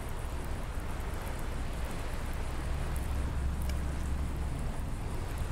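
Wind rumbling on the microphone, strongest in the middle, over a faint even hiss of open water.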